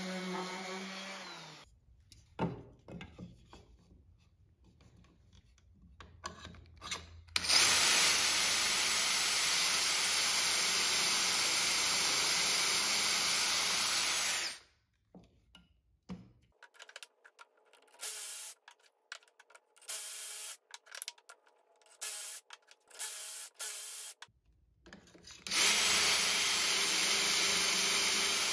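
Cordless drill boring dowel holes into the edge of a pine board through a plastic doweling jig: one long run of about seven seconds, then a shorter run of about three seconds near the end. Clicks and knocks of handling come between the runs.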